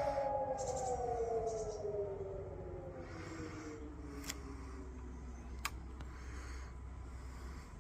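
Fire siren sounding the fire-brigade alarm, winding down: its tone falls steadily in pitch and fades over about four seconds. Two short clicks come later.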